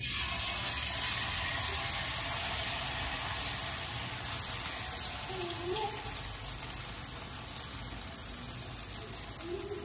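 Bakwan (vegetable fritter) batter deep-frying in hot oil in a wok: a loud sizzle that starts suddenly as the batter goes in, with scattered small pops, slowly easing over the seconds.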